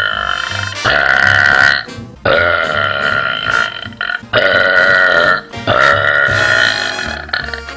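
A girl burping deep, man-like burps in a string of long, loud belches, each about a second or more, one roughly every two seconds.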